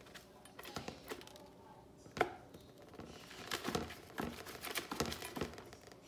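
Baby African grey parrot pecking at a metal bowl of seed mix and scrabbling on newspaper in a plastic tub. It makes irregular clicks and rustles, with one sharp click about two seconds in and a denser run of clicks in the second half.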